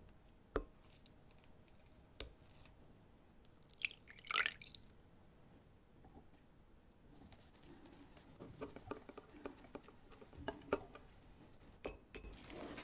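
Milk poured from a small cup onto egg yolks in a glass bowl, a brief splashy pour a few seconds in, after a couple of light knocks. Then a wire whisk beats the yolks and milk, ticking quickly and unevenly against the glass bowl.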